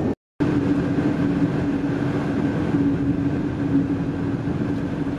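Car driving, heard from inside the cabin: a steady drone of engine and tyre noise with a constant low hum. The sound cuts out for a moment right at the start.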